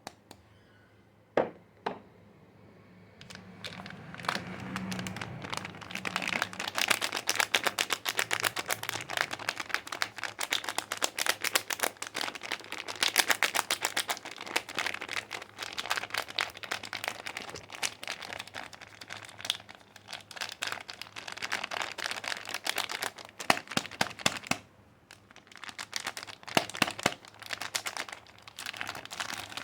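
Soap packaging being unwrapped by hand: a dense, continuous crinkling of the wrapper, after a couple of sharp clicks at the start, with a short pause near the end before the crinkling resumes.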